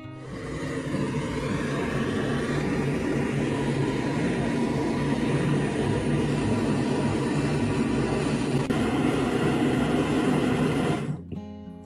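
Angle grinder rigged as a tile hole cutter running steadily at speed, then cutting off about eleven seconds in, after which background music resumes.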